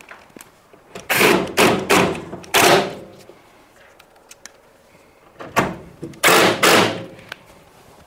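Cordless drill-driver running in short bursts as it drives in the two screws holding a tumble dryer's lid to its rear panel: one group of bursts about a second in, a second group about five and a half seconds in.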